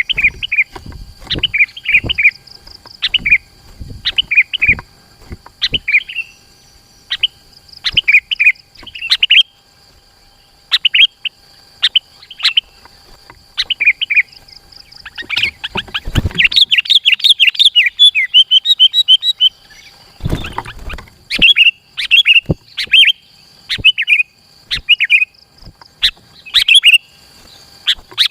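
Sooty-headed bulbul (kutilang) singing busily, short bubbly phrases repeated every second or so, running into a fast dense stretch of notes about halfway through. A steady high whine sits behind the song, and two brief low rumbles come about halfway in.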